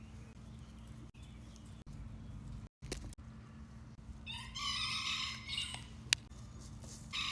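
A rooster crows once, a long call of about a second and a half just past the middle, over a steady low rumble. A sharp click follows, and another chicken call begins at the very end.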